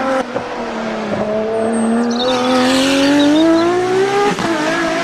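Race car engine sound, its pitch climbing steadily over a few seconds and then dropping suddenly near the end, over a hiss.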